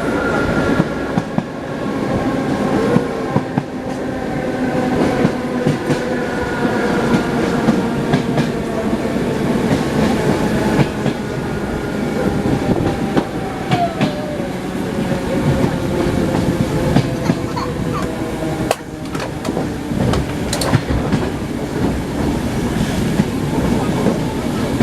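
Wheels of an ED9M electric train clattering over rail joints, heard inside the carriage, with a steady whine of several tones underneath that falls gently in pitch.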